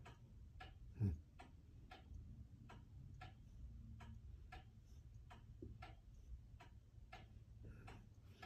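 A clock ticking faintly and evenly, about two ticks a second, over a low room hum, with a brief murmured 'mm' about a second in.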